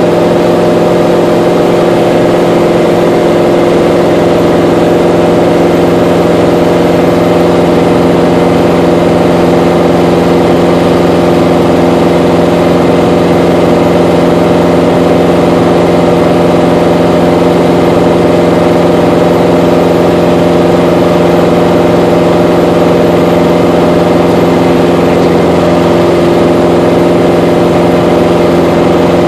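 Mooney M20J's four-cylinder Lycoming IO-360 engine and propeller running steadily in flight, heard from inside the cabin: a loud, even drone with several steady tones.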